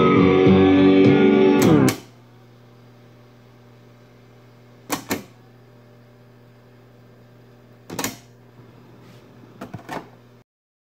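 Music with guitar playing from an 8-track tape through a vintage Elgin portable player's speaker, stopping abruptly about two seconds in. After that, a low steady hum with a few sharp clicks of the player's channel push button, the first two as press-and-release pairs about three seconds apart and several more near the end.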